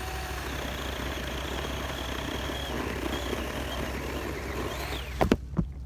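A 24-volt cordless mini chainsaw with a 6-inch bar running and cutting through a wrist-thick sweet gum sapling: a steady chain-and-motor noise with a faint whine. A few sharp knocks come about five seconds in, as the noise falls away.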